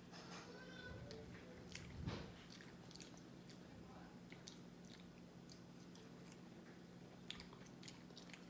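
Faint close-up chewing of food, with many small wet mouth clicks and soft crunches scattered through, over a steady low hum.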